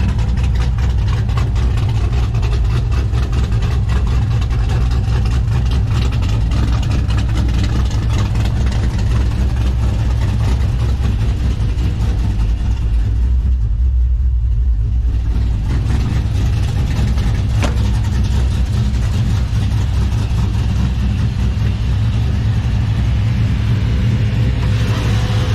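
LS-swapped V8 in an OBS Chevy pickup running steadily, with a deep, low exhaust rumble.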